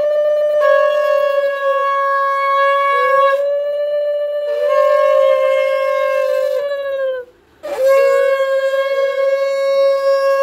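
Conch shell (shankha) blown in long blasts on one steady note, the pitch scooping up slightly as each breath starts, a ritual sounding during a Hindu puja. It breaks off about seven seconds in, then comes one more long blast.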